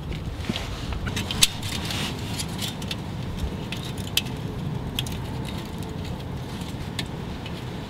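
Light metallic clicks and clinks of a jubilee clip (worm-drive hose clamp) being handled and fitted around a thin metal exhaust repair sleeve, with a sharper click about one and a half seconds in, over steady low background noise.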